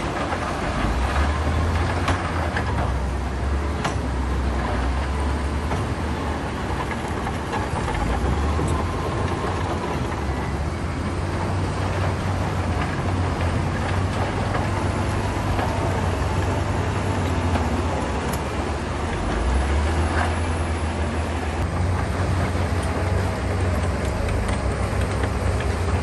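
Heavy diesel earth-moving machinery running and working, a steady deep engine drone that swells twice as the engines are loaded, with a few sharp knocks and clanks.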